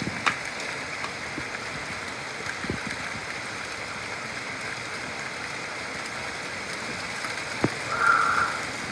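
Steady rain falling during a thunderstorm, an even hiss with a few faint taps. A short higher-pitched call or squeak comes about eight seconds in.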